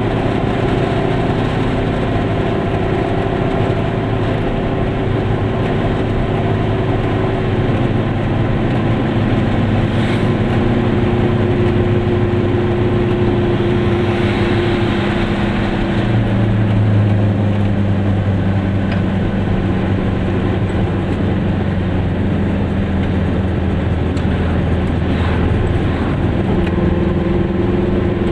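Goggomobil's two-stroke twin engine running steadily while driving. Its note steps lower about eight seconds in and again about sixteen seconds in.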